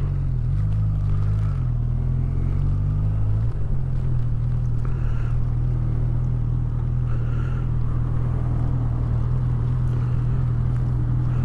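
Honda CB1000R's 998 cc inline-four engine running at low speed, its note shifting for the first few seconds, then settling into a steady idle.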